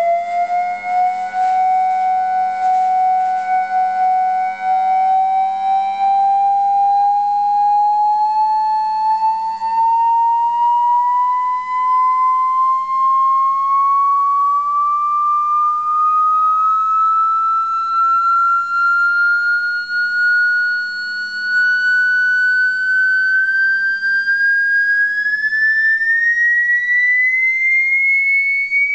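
A pure test tone from a loudspeaker driving a homemade wok hang drum, gliding slowly and steadily upward in pitch from a mid whistle to a high one as it sweeps through the drum's vibration modes. A faint steady low hum sits underneath.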